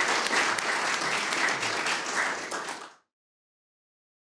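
Audience applauding, fading out about three seconds in.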